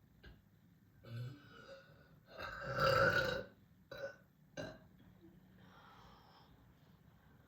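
A person belching: a shorter burp about a second in, then a longer, louder one near three seconds. Two brief sounds and a soft breath follow.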